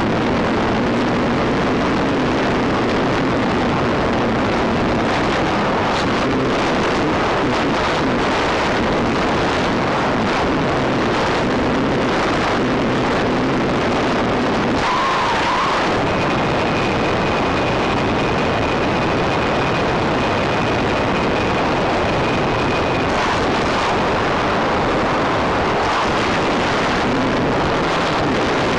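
Steady rushing airflow noise on the onboard microphone of an FPV model plane gliding with its motor off, with a faint thin high whine for several seconds around the middle.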